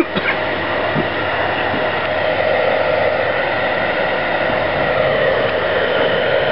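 Handheld heat gun blowing steadily, heating carbon fiber vinyl film to make it pliable so it sticks to the roof edge.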